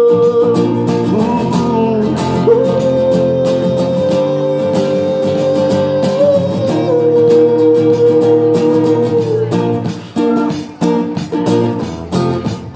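Live song on guitar with a man's voice singing long wordless held notes over the strumming; about ten seconds in the voice drops out and the guitar strums on alone.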